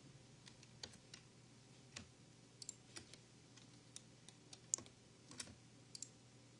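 Faint, irregular clicks of a computer keyboard and mouse, the loudest just before five seconds in, over a low steady hum.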